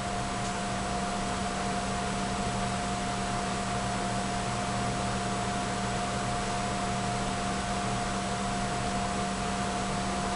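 Steady hiss with a constant low hum and a fainter steady higher tone underneath, unchanging throughout; no other sound stands out.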